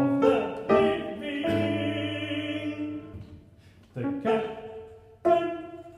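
Male classical singer with piano in a slow, halting contemporary art song: short, separated sung phrases and dry, detached piano chords that fade quickly, with one long held sung note near the middle.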